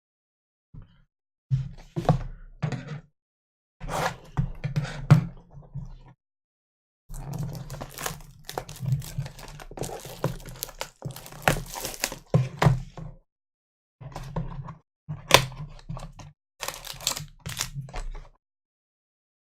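Plastic trading-card pack wrappers crinkling and crackling in the hands as packs are opened and cards handled, in several bursts separated by short silences.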